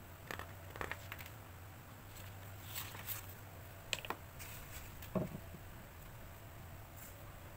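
Paper handling at a desk: a notepad and a sheet of kraft paper board shift and rustle, with a few light taps and ticks as a pen traces around the pad's edge.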